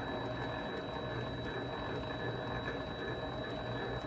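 Vevor MX400 mini lathe running steadily with a constant motor hum.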